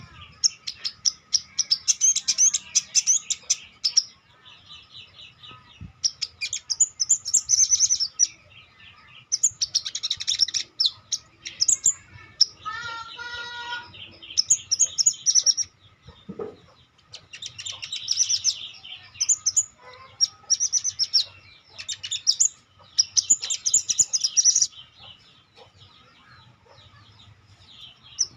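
Sogon (ontong) songbird singing: repeated bursts of rapid, high chattering song, each a second or two long with short pauses between. About 13 seconds in comes one shorter, lower call with a ringing, layered tone.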